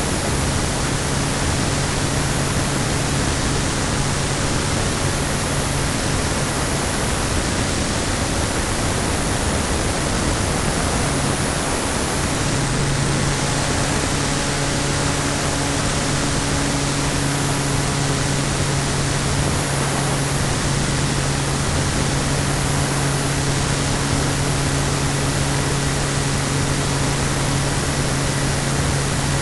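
Steady rushing airflow noise on the built-in microphone of a keychain camera riding on a Cularis RC glider in flight. A low steady hum runs under it, fading out for a few seconds near the middle and then coming back.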